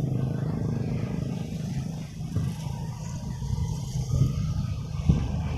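A low engine rumble that fades during the first second, then an uneven low rumble with a single knock near the end.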